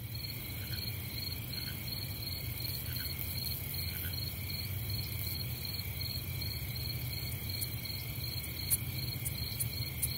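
Crickets chirping in a steady, rapidly pulsing high trill over a low, even hum.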